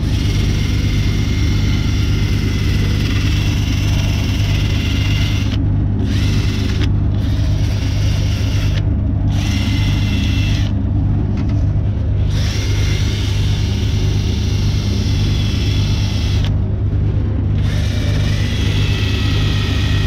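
Cordless drill running steadily, spinning a 320-grit sanding disc on a backing plate against the edge of an aluminium alloy wheel rim to refine sanded-out kerb damage. Under the steady motor hum, the sanding scrape cuts out briefly several times as the disc comes off the rim.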